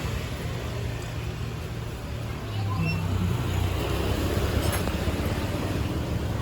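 Low, steady rumble of motor-vehicle traffic, growing a little louder about two and a half seconds in.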